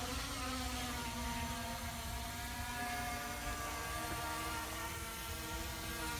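A drone's 1806 1800kv brushless motors and propellers buzzing in flight: several whining tones that drift slowly up and down as the motors change speed, over a steady low rumble.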